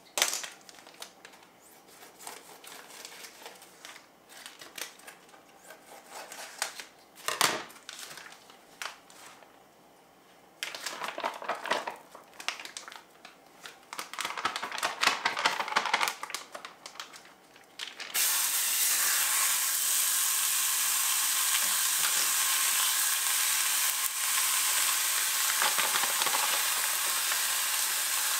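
Plastic meat packaging crinkling and tearing open in short bursts, then, about two-thirds of the way in, raw ground breakfast sausage hits a hot cast-iron skillet and starts a steady sizzle.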